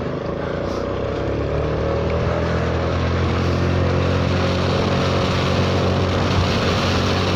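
Honda Forza 300 scooter's single-cylinder engine pulling away, its pitch rising gently over the first few seconds and then holding steady at cruise, with a steady rush of wind over the microphone.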